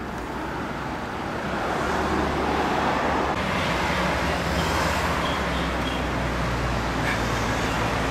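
Street traffic: a steady rush of passing vehicles with a low engine hum, swelling about two seconds in.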